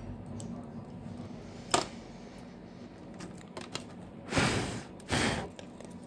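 Hands handling a disassembled smartphone on a workbench: one sharp plastic click just under two seconds in, a few faint ticks, then two short rubbing, scraping noises near the end as the phone and its back cover are picked up.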